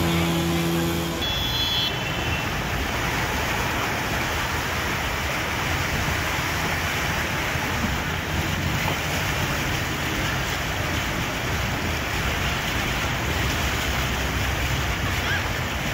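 Steady rushing noise of rain and traffic on a waterlogged street, with a low steady hum that cuts off about a second in.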